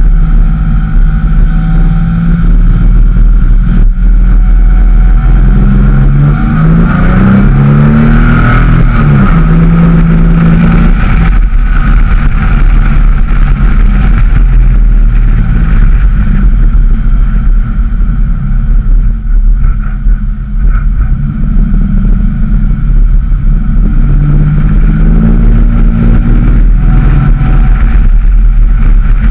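Porsche 911 (996) water-cooled flat-six engine heard close up from the rear engine lid while driving, loud and steady. Its pitch climbs under acceleration a quarter of the way in and again near the end, dropping back in between.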